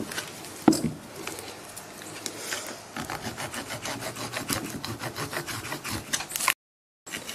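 Plastic bleach-bottle mould being peeled and torn in strips off a cured cement vase: rapid crackling and rubbing of the plastic against the cement, with one sharp knock about a second in. The sound drops out briefly near the end.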